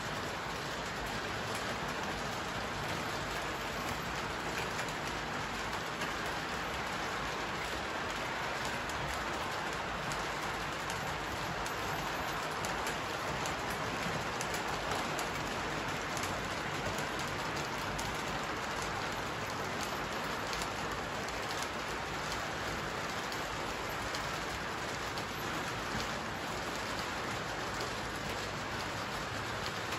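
Electric model trains running on the layout's track: a steady rolling whir of wheels and motors on metal rails with faint clicks, a little louder near the middle as a train passes close by.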